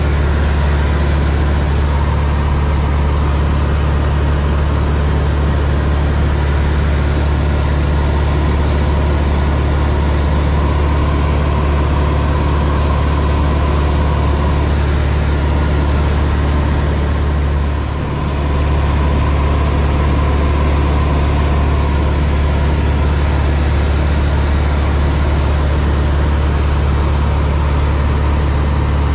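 Single-engine light aircraft's piston engine and propeller droning steadily in cruise, heard loud inside the cockpit. The level dips briefly about two-thirds of the way through.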